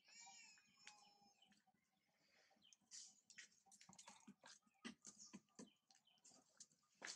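A faint, short, high wavering animal call in the first second, followed by scattered faint rustles and clicks.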